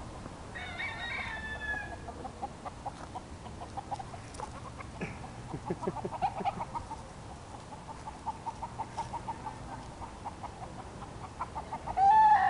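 Feral chickens clucking in a long run of short notes, about four a second, after a rooster crows about half a second in. A loud call breaks in near the end.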